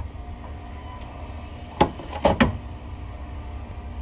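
Glass jar lifted out of a refrigerator door shelf, knocking and clinking against the shelf: one knock just under two seconds in, then two more close together. A steady low hum runs underneath.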